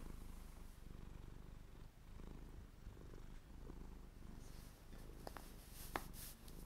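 Cotton socks rustling and brushing against skin as a sock is pulled onto a foot in the second half, with a sharp click near the end. A low steady rumble sits underneath throughout.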